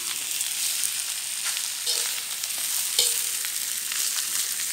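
Beef and toasted grated coconut sizzling in a wok as a metal spatula stirs it, with a few short scrapes of the spatula on the pan about two and three seconds in. The mixture is being stir-fried until the oil dries and the meat and coconut come together.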